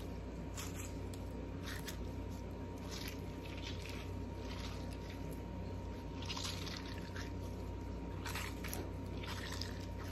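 Orbeez-filled squishy stress ball squeezed and kneaded by hand, giving wet squishing noises in short, irregular bursts, several in a few seconds.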